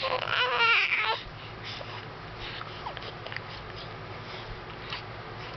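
A short, high-pitched vocal sound with a wavering pitch for about the first second, without recognisable words. It is followed by low room sound with a few faint clicks and one brief small squeak.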